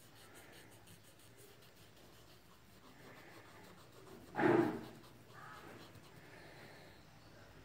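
Cotton bud rubbing graphite shading into drawing paper: a faint, soft scratching. About four and a half seconds in there is a brief, louder noise lasting about half a second.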